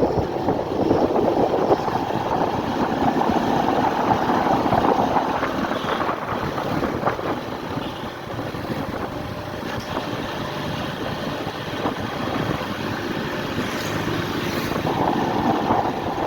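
Motorcycle engine running continuously, a little quieter around the middle and louder again toward the end.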